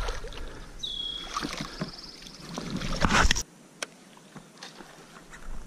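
Water sloshing and splashing at the boat's side as a fish is handled at the surface, building up and then cutting off abruptly to quieter lapping water with a few light clicks.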